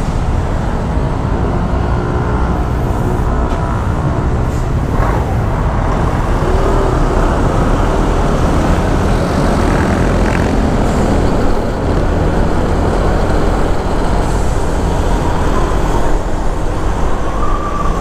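Honda ADV150 scooter's single-cylinder engine running steadily while riding at speed, heard under heavy, steady wind and road noise.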